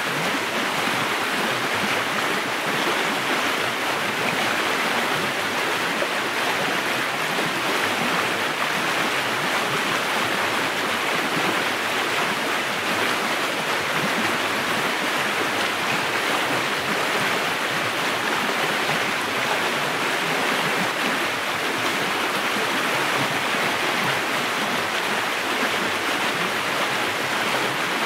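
River water rushing steadily in an even, unbroken wash.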